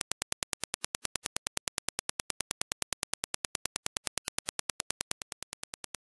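Dirac impulse test signal: a rapid, even train of sharp clicks, about ten a second. A little past five seconds in, the clicks drop a step in level.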